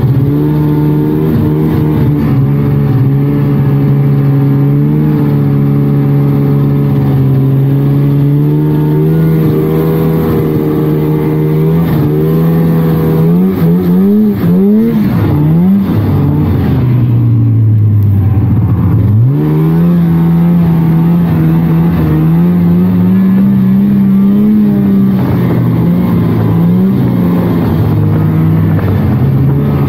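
A 1999 Polaris trail snowmobile's two-stroke engine running under way at a steady pitch. About halfway through, the revs rise and fall quickly several times, then sag low and climb back to a steady pitch.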